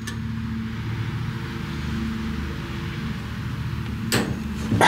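Hex key working the set screw of a laser engraver's gantry drive-shaft coupler loose, with two sharp metallic clicks near the end as the screw breaks free, over a steady low hum.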